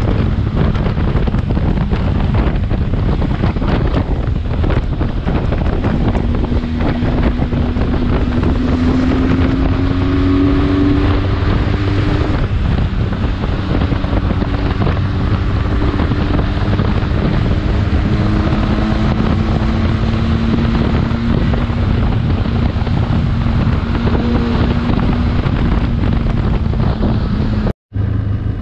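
Wind buffeting the microphone of a motorcycle-mounted camera over the steady hum of a Benelli TRK 502X's parallel-twin engine cruising at highway speed, its note rising slightly a few times. The sound cuts out suddenly near the end.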